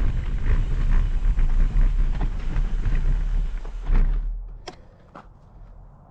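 Mountain bike rolling down a dirt forest trail: wind buffeting the microphone over the rattle of the bike on the ground, ending with a knock about four seconds in as the bike stops. After that it is much quieter, with two sharp clicks.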